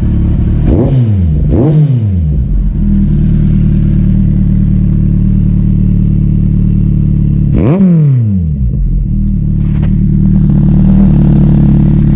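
Kawasaki Z800 inline-four idling through a Two Brothers Racing Tarmac exhaust with its baffle removed, blipped twice in quick succession early on and once more about eight seconds in, the revs falling straight back to idle each time.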